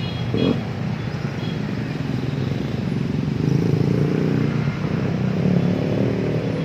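Road traffic: a steady, dense hum of vehicle engines running.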